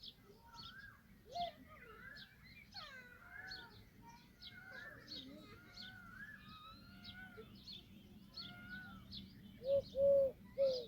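Several birds calling together: quick high chirps and gliding whistled calls. About a second from the end come three loud, short calls in quick succession.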